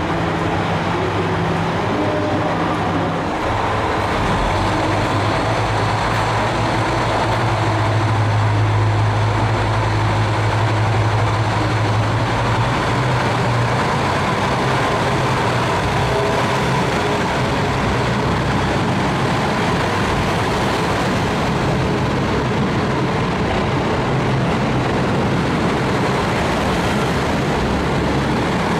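Diesel railcar engines running: a steady low drone whose pitch shifts, loudest from about eight to thirteen seconds in, over constant mechanical and station noise.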